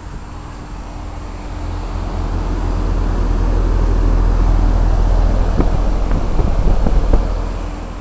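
Moving air buffeting the microphone: a rough low rumble that builds over a few seconds, holds, and fades near the end, with a few soft knocks just before it fades.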